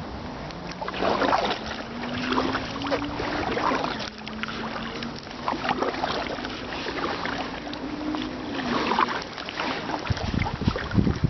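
Kayak paddle strokes splashing in river water at a regular pace, a bit under a second apart.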